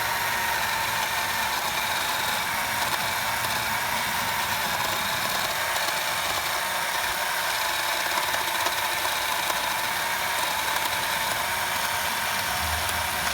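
WORX 20V cordless electric chainsaw running steadily with a high motor whine while cutting through a log.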